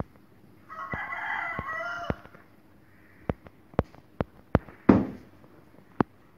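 A rooster crows once for about a second and a half. Then come a run of sharp clicks and a louder knock a little past halfway, as a sack hung from a fishing rod is lowered to the floor, with one more click near the end.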